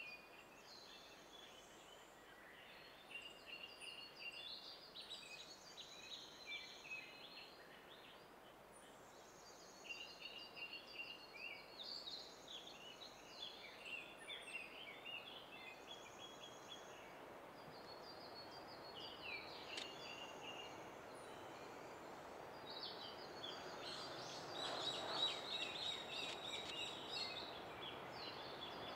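Songbirds singing short repeated phrases, faint. In the last third the low noise of an approaching EH500 electric locomotive and its container freight train grows louder.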